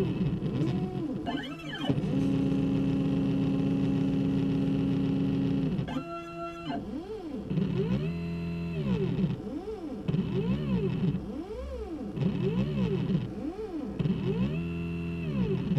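Stepper motors of a hobby CNC router driving a Sharpie across paper, whining in pitched tones that sweep up and down with each pen stroke as the motors speed up and slow down. A steady held tone runs from about two seconds to six seconds in during one long move, then the rising-and-falling whines come about once a second.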